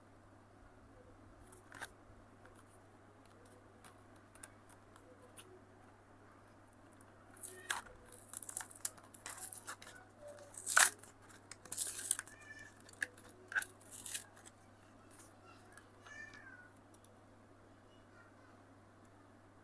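Diecast car packaging being opened by hand: scattered clicks, then a cluster of crinkling and tearing noises in the middle that die down again.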